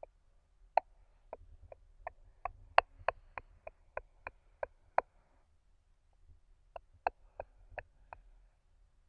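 Close-miked ASMR mouth clicks: a quick run of sharp clicks, about three a second, then a pause of a second or two and a few more clicks.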